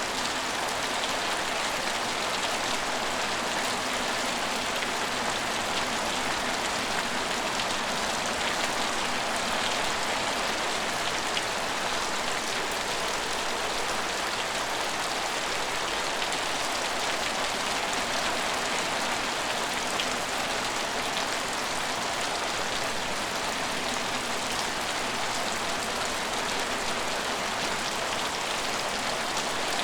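Steady rain falling on hard surfaces and pattering without let-up, an even hiss of many drops with no single sound standing out.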